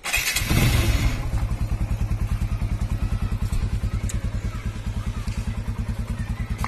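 TVS Apache RTR 160 single-cylinder four-stroke engine started on the electric starter, catching within about a second. It then settles into a steady idle through the stock exhaust, an even fast thumping of about ten beats a second.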